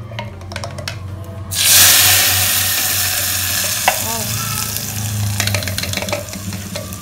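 Wet blended spice paste hitting hot oil in an aluminium pot: a sudden loud sizzle about a second and a half in that slowly eases off. A spoon scrapes and taps against the blender jar and pot, with a few clicks before the sizzle and more near the end.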